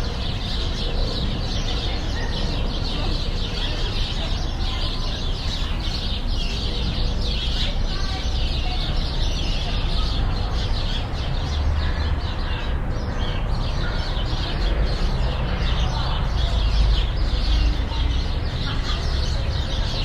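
Many small birds chattering and chirping continuously over a steady low rumble, with children's voices in the background.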